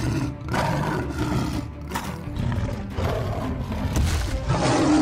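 Several dinosaur roar sound effects, one after another, over background music.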